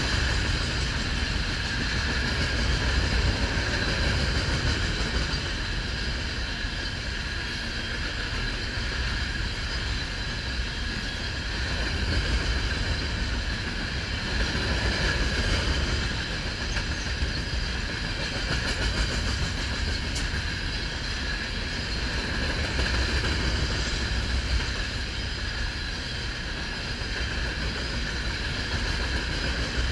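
Loaded ballast hopper cars rolling steadily past at close range, their steel wheels rumbling and clacking on the rails. The level swells and eases slowly as the cars go by.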